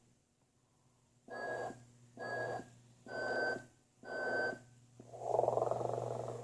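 Electric sleeping-Santa figure's recorded snoring playing. After a short silence come four short whistling snores, evenly spaced, then a long drawn snore near the end, all over a low steady hum.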